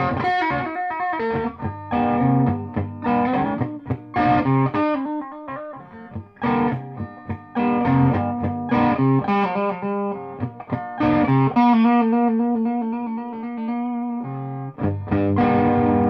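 Black Davison-made 'Spanky' electric guitar with a P90 pickup, played through a Peavey Bandit amplifier: picked single notes and chords, with a stretch of held notes, then a brief break and a chord left ringing near the end.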